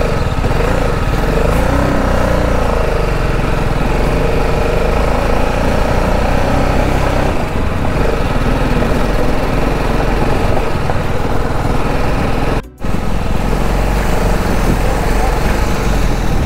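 Motorcycle engine running steadily while riding, with a low rumble. The sound cuts out for a moment about three-quarters of the way through.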